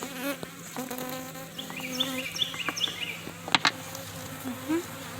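Honeybees buzzing steadily around an open hive, with a sharp click or knock about three and a half seconds in.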